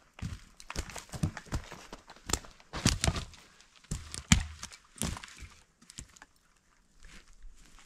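Irregular crunching, cracking and knocking of footsteps and handling on the forest floor, loudest about three and four seconds in.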